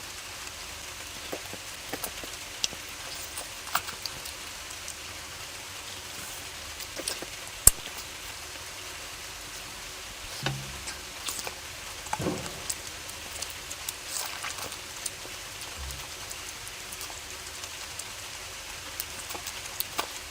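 Close-miked eating sounds of curry being chewed: scattered wet mouth clicks and crackles over a steady hiss, with one sharp click about eight seconds in and a few soft low thuds.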